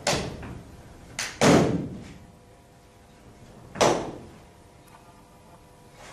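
Sharp slaps and thuds from a martial artist's hands and feet during a Northern Shaolin form: four impacts, a quick pair about a second and a half in being the loudest, and another near four seconds.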